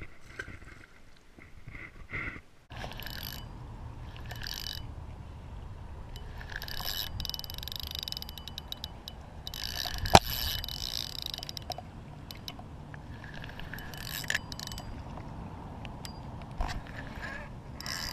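Steady wind rumble on the microphone, with bursts of rustling and fine clicking from a spinning rod and reel being handled, and one sharp click about ten seconds in.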